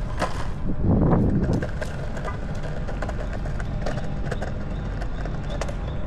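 Longboard wheels rolling over stone pavers: a steady rumble with many short clicks as the wheels cross the joints, and a heavier thump about a second in.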